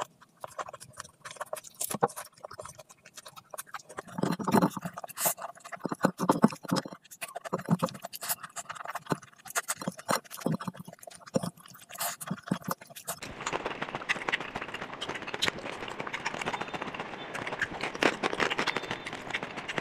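Close-miked eating sounds: wet smacking, chewing and lip clicks as rice and mutton curry are eaten by hand, in irregular bursts with short pauses. About two-thirds of the way through it changes to a denser, continuous crackle of mouth and chewing sounds.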